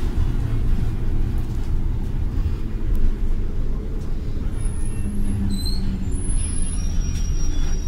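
City bus riding along, heard from inside the passenger cabin: a steady low rumble of engine and road noise, with a few brief high squeals about halfway through.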